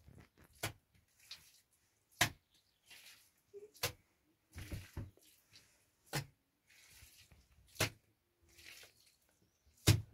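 A series of six sharp knocks, roughly one every one and a half to two seconds, with softer scuffing and rustling between them.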